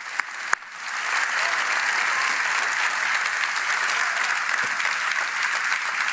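A few scattered claps, then a large crowd breaks into dense, steady applause about a second in.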